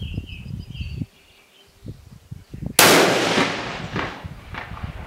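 A single loud shot from a Sauer S 101 Classic XT bolt-action rifle in .308 Winchester, about three seconds in, its echo dying away over about two seconds.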